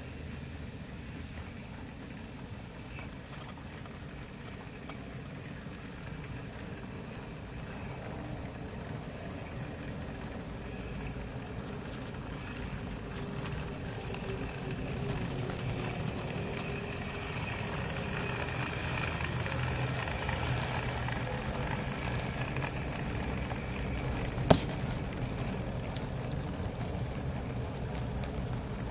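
Model steam locomotive and its coaches running past, their running noise swelling to a peak past the middle and then easing a little. A single sharp click comes near the end.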